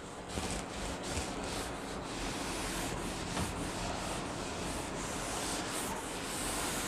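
Cloth duster wiping chalk off a chalkboard: a steady, quiet rubbing of cloth against the board surface.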